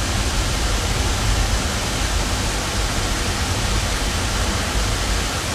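Steady rushing noise with a deep rumble underneath, unbroken throughout.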